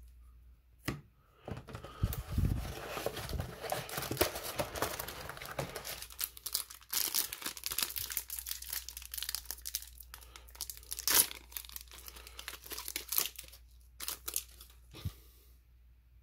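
A trading card booster pack's wrapper being torn open and crinkled by hand. The crackling starts about a second and a half in and goes on with several sharp rips, the loudest near the middle, dying away just before the end.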